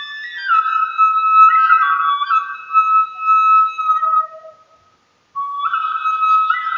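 Music: a single high melody of held and gliding notes, flute-like in tone. It cuts out for about half a second near the end, then resumes.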